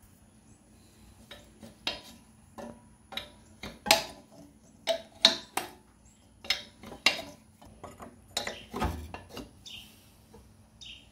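Steel combination wrench clinking and knocking against a nut and the surrounding cast-iron engine parts of a Farmall Cub tractor, a string of irregular sharp metallic clicks.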